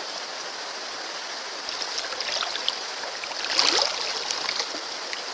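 Flowing stream water, with a louder splash in the water about three and a half seconds in.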